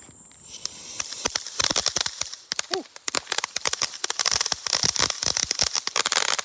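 Consumer firework going off: a short hiss as it catches, then dense, rapid crackling pops from about a second in, easing briefly before three seconds and then resuming.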